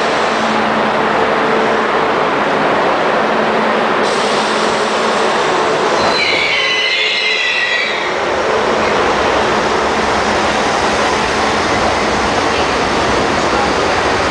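R32 subway train departing the station, a loud steady rumble of steel wheels on rail. About six seconds in, the wheels squeal for a couple of seconds in several high tones.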